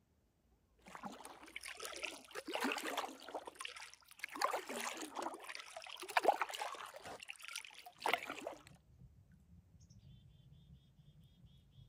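Paddle strokes through calm lake water from an inflatable packraft: water splashing and trickling off the paddle in uneven surges for several seconds, then stopping. Near the end a short run of quick, high chirps is heard.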